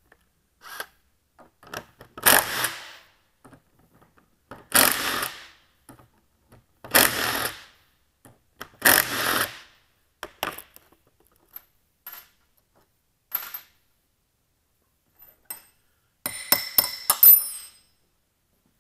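Cordless impact wrench hammering the head bolts loose on a Caterpillar D9G lift ram cylinder, in four short bursts about two seconds apart. Light metal clicks follow, then a quick run of sharp, ringing metal clinks near the end.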